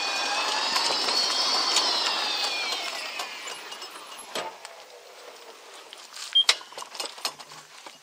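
Electric golf cart running, its motor whine rising a little and then falling away over a few seconds as the cart slows, followed by light clicks and rattles.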